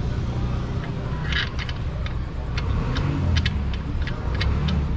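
A dozen or so light, irregular clicks as the oil filler cap with dipstick is handled and screwed back into a Yamaha Mio i125 scooter's crankcase, over a steady low rumble.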